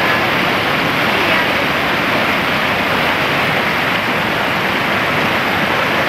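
Shallow rocky mountain river rushing over boulders in white-water rapids: a steady, loud rush of water.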